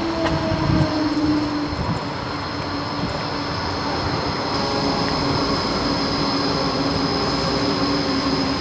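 Steady rumbling noise with a high whine above it and a lower hum that slowly falls in pitch.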